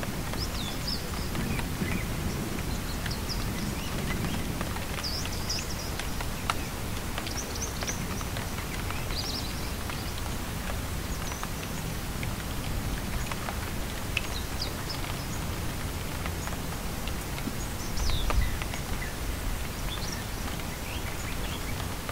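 Steady rain ambience with birds chirping now and then over it, and a low rumble about three-quarters of the way through.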